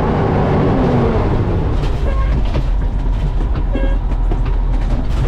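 Old fire truck's engine running hard under load, a loud low rumble whose pitch falls over the first couple of seconds.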